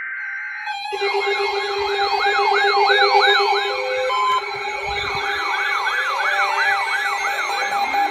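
Electronic sirens sounding, a fast rising-and-falling sweep repeating about two and a half times a second over steady electronic tones. A brief steady electronic tone comes before them in the first second.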